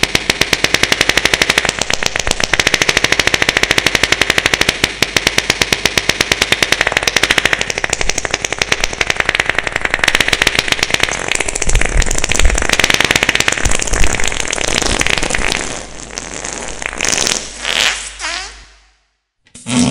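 Loud, harsh rattling noise made of many rapid even pulses a second, with a low rumble swelling in places; near the end it breaks into a few separate blasts and then stops.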